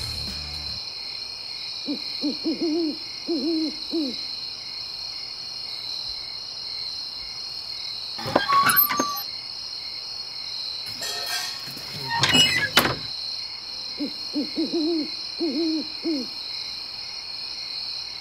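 Night ambience: an owl hooting in a short series of several hoots about two seconds in, and the same series again about fourteen seconds in, over a steady high-pitched insect chorus. About eight and twelve seconds in, a louder, brief noisy sound cuts through.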